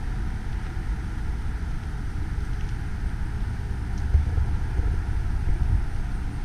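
Wind buffeting the camera microphone outdoors: a steady but fluctuating low rumble with a faint hiss above it.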